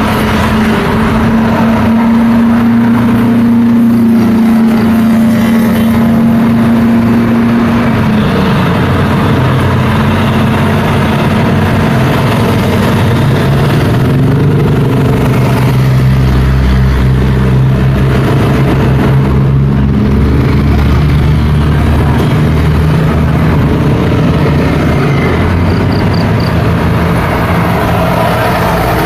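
Road traffic passing close by: motorcycles, cars, a truck and a bus driving past, with engine hum and tyre noise. One engine's hum drops in pitch about eight seconds in as it goes by, and a heavy vehicle's low engine rumble swells in the middle.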